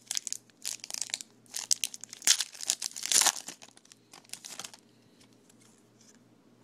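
A trading-card pack wrapper crinkling and tearing as a pack is opened by hand, in a run of short crackles that die away about two-thirds of the way through.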